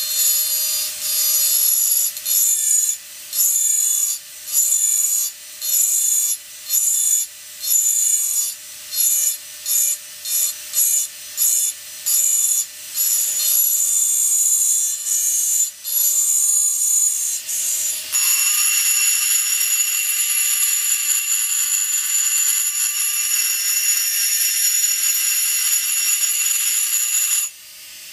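Rotary engraving handpiece running with a steady whine while its small ball burr grinds wet glass under a water drip. The burr touches and lifts in short grinding strokes, about one a second, for the first two-thirds, then grinds continuously, breaking off briefly near the end.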